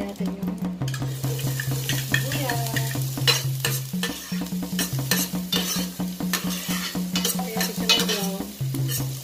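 Diced red onions sizzling in a little oil in a stainless steel frying pan, with sharp clicks and scrapes of stirring against the pan. Background music with a steady repeating bass line plays underneath.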